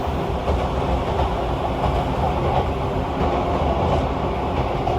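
Running noise heard inside the passenger cabin of a 185 series electric express train at speed: a steady low rumble of wheels on rail.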